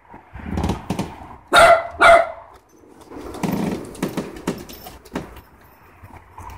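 A dog barks twice in quick succession about a second and a half in. This is followed by a couple of seconds of rustling and sharp clicks as the dogs move about on the wooden deck.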